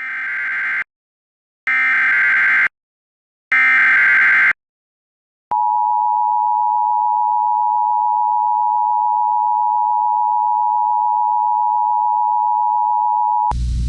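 Emergency Alert System SAME header: three roughly one-second bursts of warbling digital data tones with short gaps between them. Then comes the EAS two-tone attention signal, held steady for about eight seconds, opening a tornado warning. A broadcast voice with a low rumble starts just before the end.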